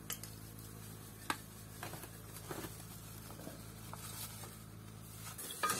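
Dry biryani spice mix pouring from a paper packet into a stainless steel pot of oil, a soft patter with a few faint taps and rustles, over a low steady hum.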